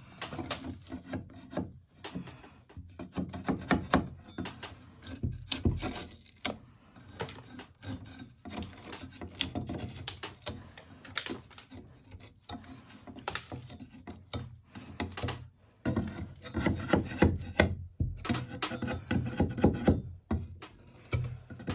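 Metal okonomiyaki spatula scraping a Japanese sand-textured wall (sunakabe), rasping in quick irregular strokes with small clicks as the crumbly coating comes away.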